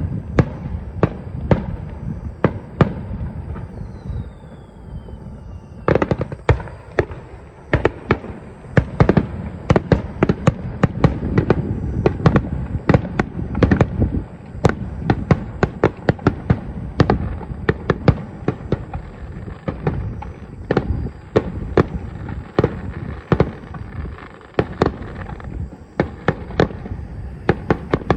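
Fireworks display: a dense, rapid string of sharp bangs and crackles over a continuous low rumble. About four seconds in, a whistle falls in pitch and ends in a loud bang.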